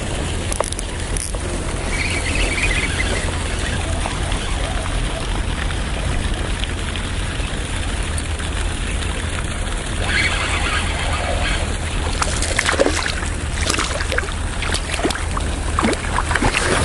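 Steady wind rumble on the microphone while a spinning reel is wound in. Near the end comes a run of sharp clicks and small water splashes as the lure nears the bank.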